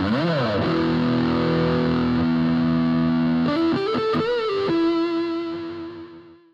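Intro music sting on distorted electric guitar: a held chord with pitch bends, ending on a single held note that fades out.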